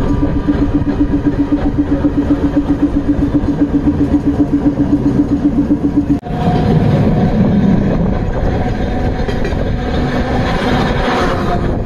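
Running noise of a New Orleans St. Charles Line Perley Thomas streetcar, heard from on board, with a rapid pulsing hum of several beats a second that cuts off abruptly about six seconds in. Then comes a rolling rumble and a steady whine as an oncoming streetcar passes close by on the other track, getting brighter near the end.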